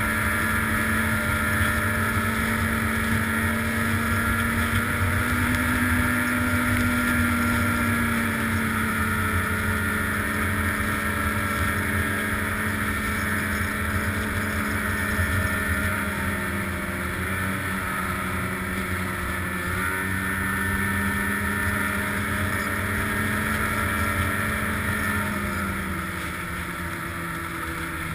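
Snowmobile engine running steadily at trail speed, its pitch dipping a little a few times as the throttle eases.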